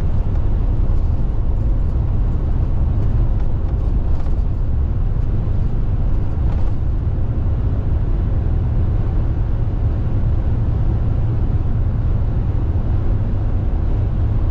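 Steady road and engine rumble heard inside the cabin of a moving car, a low, even drone.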